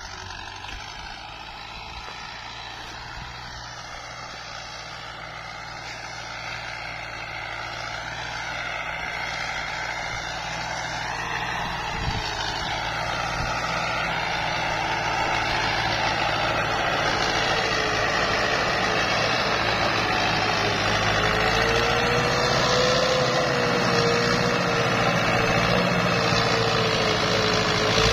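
Tractor engine running steadily and growing louder as it comes closer, with a steady high whine joining in about halfway through.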